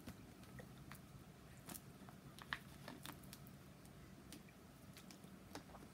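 Near silence with a few faint crinkles and clicks from a thin plastic water bottle as it is lifted and drunk from.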